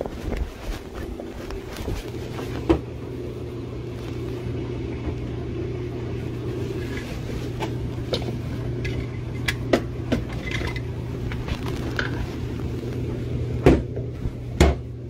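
Scattered knocks and clatters of household things being handled, the two loudest close together near the end, over a steady low hum that sets in about two seconds in.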